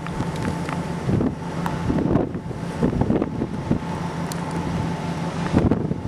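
Wind buffeting the microphone over the steady hum of a running vehicle engine.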